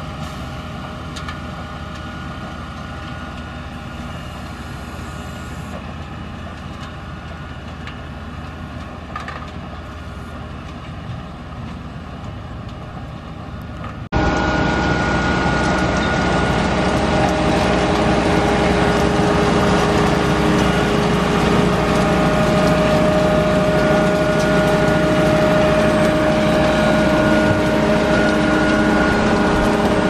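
Grimme Varitron 220 self-propelled potato harvester running while lifting potatoes: a steady engine drone with the hum of its machinery. About halfway in it turns suddenly much louder and closer.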